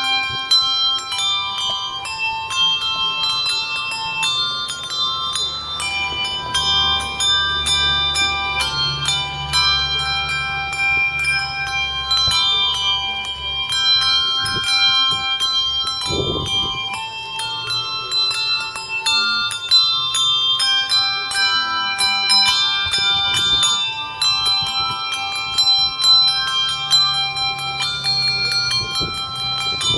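A handbell duet: a tune played as a continuous run of struck notes, each ringing on and overlapping the next.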